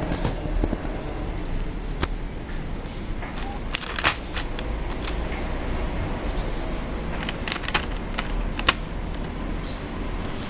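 Outdoor street ambience: a steady low rumble of distant traffic, with a few sharp clicks or knocks scattered through it, the loudest about four seconds in and near the end.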